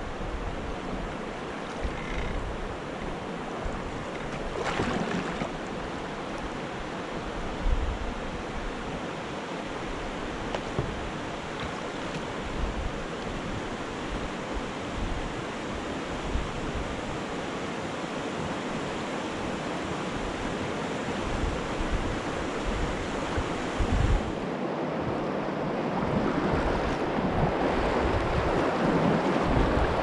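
River water rushing over shallow rapids, a steady rush that grows louder near the end as the kayak runs into the fast water, with wind buffeting the microphone.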